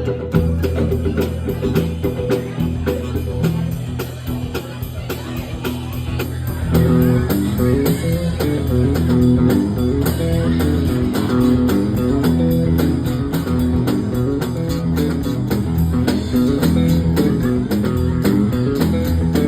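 A live band playing guitar-led music with bass over a steady beat; it drops back for a few seconds, then comes in fuller and louder about seven seconds in.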